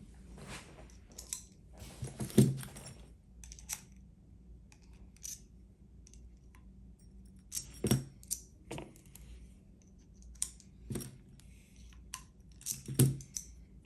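Small metal clicks and clinks of a padlock and tools being handled on a bench, with a few louder knocks at irregular intervals.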